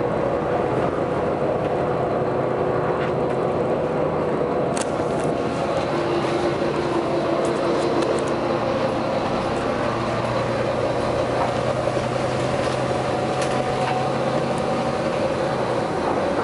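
Steady running noise of a vehicle, with a low hum and a single sharp click about five seconds in.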